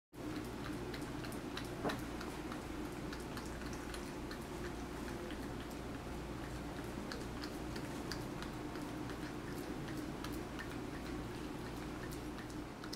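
A cat licking and nibbling a peeled banana: small, wet, irregular mouth clicks and smacks, with one louder click about two seconds in, over a steady low hum.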